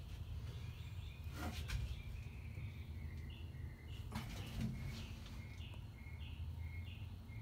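A bird chirping over and over, short calls about two a second, starting about three seconds in. Underneath runs a low steady rumble, with a couple of brief rustling knocks.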